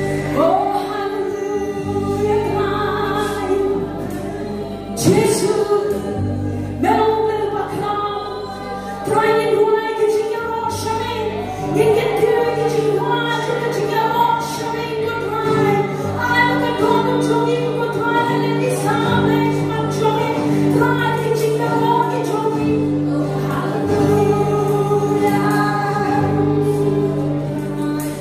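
Live gospel praise-and-worship song: women singing lead and backing vocals together, backed by electric bass, acoustic guitar and drums.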